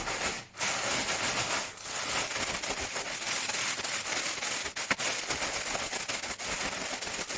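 Fresh mussels being rubbed with coarse salt inside a closed plastic bag: a dense, steady crackle of shells and salt grinding together and the bag crinkling, with a brief lull about half a second in.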